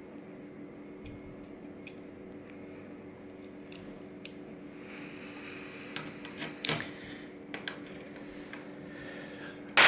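Scattered light clicks and taps of small metal lock parts being handled on a hard surface, ending in one sharp, louder clack, over a steady low hum.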